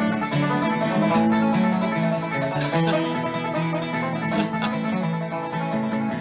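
Background bluegrass music with a banjo and guitar picking at a steady pace.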